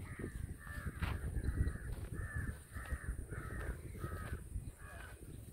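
Crow cawing in a quick repeated series, about two caws a second, stopping about five seconds in, over a low rumble of wind or handling on the microphone.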